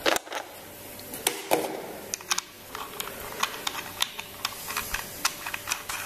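Irregular small metallic clicks and ticks as an RDA atomizer is handled and screwed onto a squonk box mod's 510 connector.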